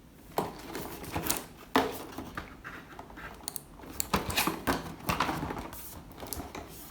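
Hands handling a plastic toy gun set and its packaging: irregular rustling with scattered clicks and knocks.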